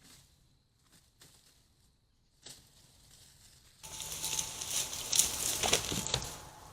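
Rustling and crackling, faint at first and much louder from about four seconds in: a deer moving through leaf litter close to a trail camera.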